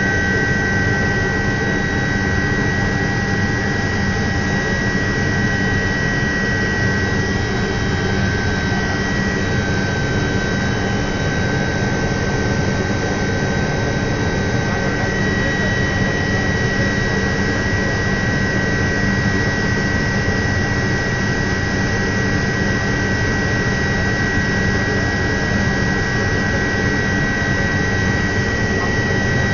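Alouette III (IAR-316B) helicopter in flight, heard inside the cockpit. A steady high turbine whine from its Turboméca Artouste turboshaft sits over a constant low rumble from the rotor and drivetrain.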